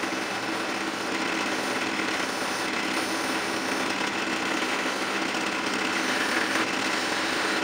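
Drill press spinning a sanding drum, with a flat metal piece pressed against it: a steady abrasive sanding noise over the motor's hum.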